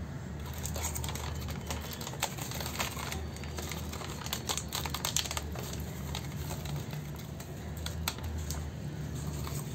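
Irregular light clicks and taps from a plastic measuring scoop and a foil cereal packet being handled over a stainless steel bowl, over a low steady hum.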